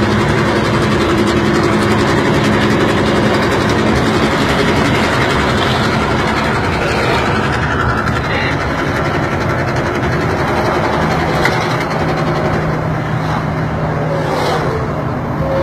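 Old FNM truck's engine running steadily at road speed, heard over steady wind and road noise.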